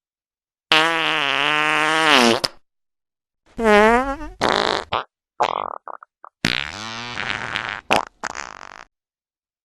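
A string of fart sound effects separated by dead silence: a long wavering one about a second in, a shorter one rising in pitch, a few short sputters, then two more raspy ones near the end.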